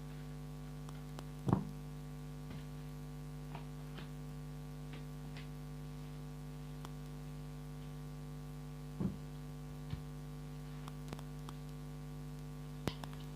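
Steady electrical mains hum with a buzzy stack of overtones, a recording fault. A few soft clicks and taps sound through it, the loudest about a second and a half in and another near the two-thirds mark.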